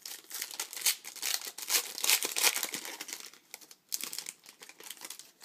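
Trading-card pack wrapper being torn open and crinkled: a dense crackle for about three seconds, a short lull, then more crinkling about four seconds in.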